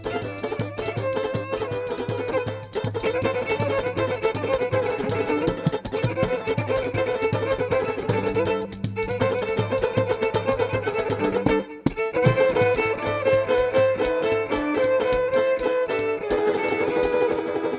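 Instrumental music: a lead melody over a steady bass line and rhythmic accompaniment. It breaks off suddenly for a moment about two-thirds through, then carries on.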